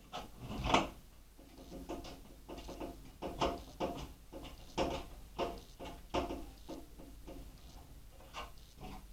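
A screwdriver and metal PC parts being handled, giving a run of irregular clicks, knocks and short scrapes, the loudest a sharp knock near the start.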